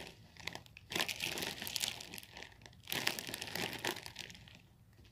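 Clear plastic bag around a large snack pack crinkling as it is handled close to the microphone. It comes in three bursts, about a second apart, and dies down near the end.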